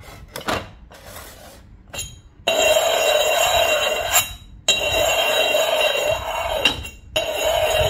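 Yixing purple-clay (zisha) teapot being handled: a few light clay clinks, then from about two and a half seconds in, three long stretches of clay scraping on clay with a steady ringing tone, as a teapot lid does when rubbed around the pot's opening.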